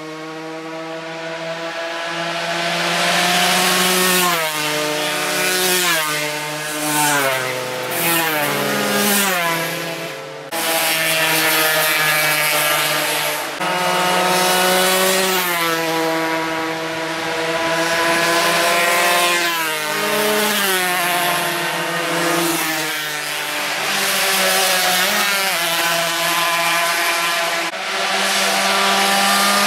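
Racing motorcycle engines at high revs. The pitch drops in steps, gear by gear, between about four and ten seconds in, then breaks off abruptly and climbs and falls again as the bikes accelerate and shift.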